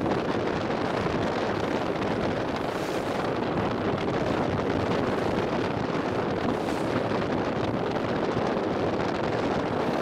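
Wind buffeting the microphone aboard a boat under way, over the steady rush of the boat's engine and the water.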